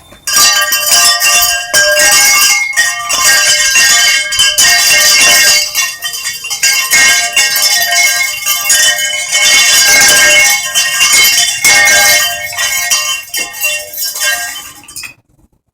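Metal chimes jangling and ringing loudly, many overlapping tones clashing together without pause, stopping abruptly near the end.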